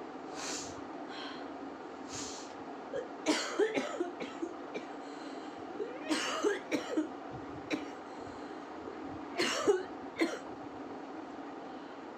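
A woman coughing in three fits of several coughs each, about three seconds apart. Short breathy sounds come before the first fit.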